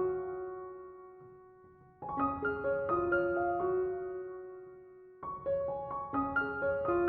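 Background music: a slow, gentle piano piece. Its notes come in short runs, each phrase ending on a held note that dies away before the next run begins.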